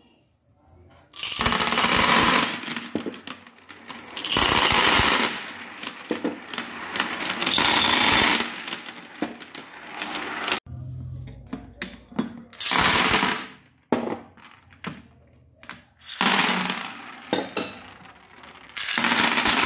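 Glass marbles poured out of cups onto a hard surface, about six times: each pour is a loud clattering rush of marbles striking one another and the surface, followed by scattered clicks as they roll and settle. Toward the end, flat glass gems and beads clink as they are poured and spread.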